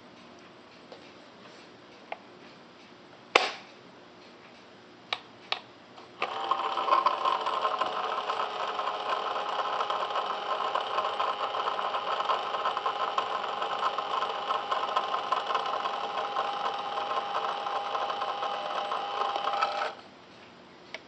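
The lid of a small countertop denture and retainer cleaner snaps shut, and two short button clicks follow. The cleaner then runs a cleaning cycle with a steady hum for about 14 seconds and stops abruptly.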